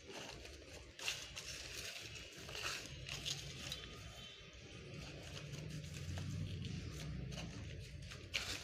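Hands pressing and working sandy soil into a plastic nursery bag around a banyan cutting: faint, scattered gritty scrapes and rustles with a few sharper clicks.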